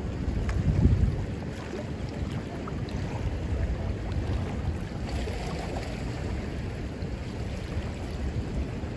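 Fast, churning spillway water rushing steadily, with wind buffeting the microphone, strongest in a gust about a second in.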